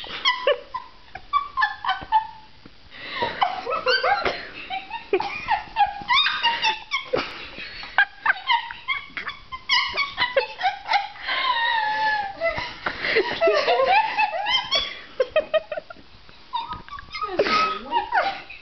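Two women laughing and squealing in high-pitched bursts while tickling each other, with short lulls to catch their breath.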